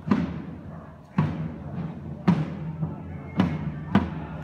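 Large wooden-shelled bass drum beaten with a stick in a slow marching beat, about one stroke a second with one extra stroke in between near the end. Each stroke rings on briefly.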